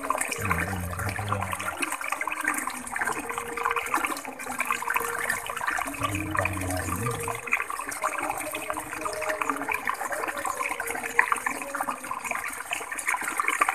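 Running water, a steady gurgling splash, with two short low hums, one early and one about six seconds in.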